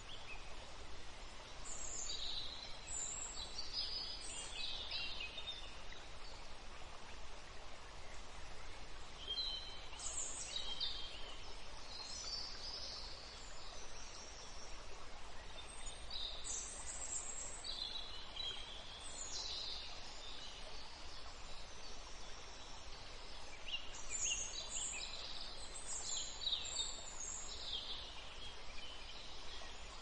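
Nature-sound ambience: songbirds chirping and singing in several spells of quick high notes over a steady, even outdoor hiss.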